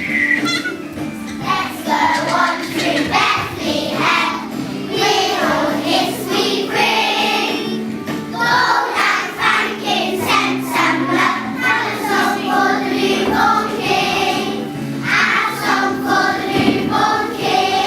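Music with a choir of voices singing over steady held low notes.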